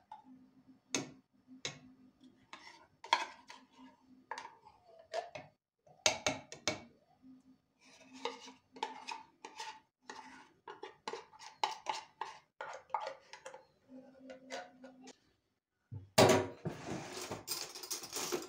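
A metal spoon scraping and clinking against the inside of an opened tin of sweetened condensed milk, scooping it into a plastic blender beaker, in many short scrapes and taps. Near the end, a loud rattle of cutlery as a kitchen drawer is opened and searched.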